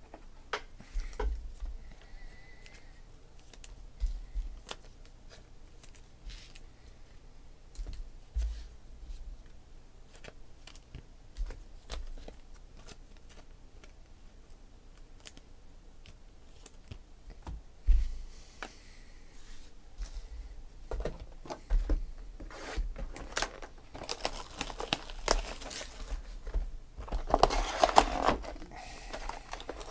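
Trading cards being handled and set down, with scattered light taps and clicks, then a Panini Select football card pack's wrapper being torn open and crinkled, loudest near the end.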